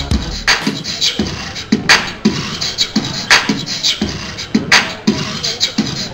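Hip-hop beat for a stage dance: a sparse, bass-less percussive pattern of quick clicks and snare-like hits, with a heavier hit about every second and a half.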